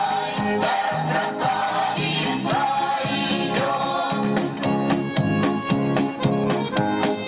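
Music: voices singing over instruments, giving way about halfway through to an instrumental passage of short chords in a steady rhythm.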